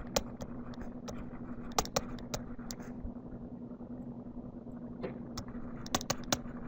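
Light, irregular clicks and taps of a stylus on a tablet during handwriting, over a steady low electrical hum.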